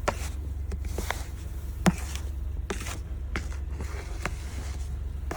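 Short crunching scrapes in snow, irregularly about once a second, the sharpest about two seconds in, over a steady low rumble.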